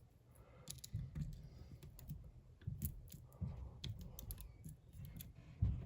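Faint, irregular small metallic clicks with light knocks: a lock pick and tension wrench working the side pins inside a hardened-steel bike lock's cylinder.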